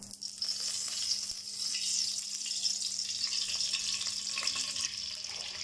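Cooking oil poured into a hot non-stick kadhai, sizzling steadily as it spreads over the leftover spice residue. The sizzle starts suddenly as the oil hits the pan.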